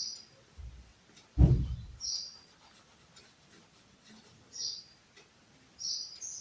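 A small bird chirping, short high chirps about every second or two, with several close together near the end. A low thump about a second and a half in is the loudest sound, with faint ticks around it.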